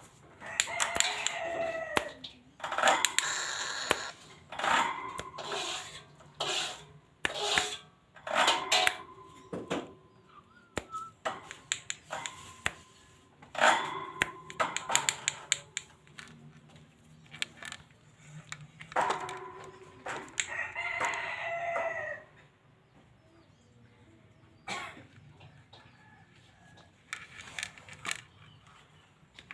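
Black-naped oriole making harsh, agitated calls in repeated bursts, with gaps of a few seconds between them.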